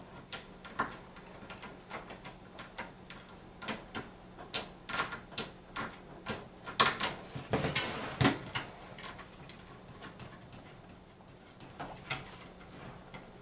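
Irregular clicks, taps and knocks of liquid CPU cooler mounting parts being handled and fitted onto a computer motherboard, busiest about halfway through and sparser toward the end.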